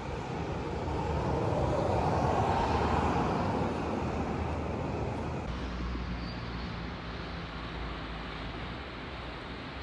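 Outdoor noise with no clear tone, a rushing sound that swells and fades over the first few seconds, then a sudden change to a quieter, steadier low rumble.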